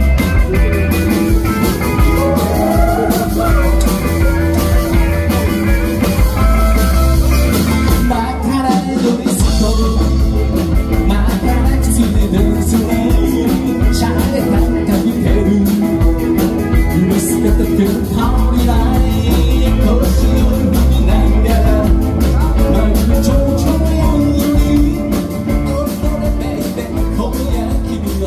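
Live band playing with drums, electric guitars and keyboard, and a man singing into a microphone. The low end drops out for a moment about eight seconds in, then the full band comes back.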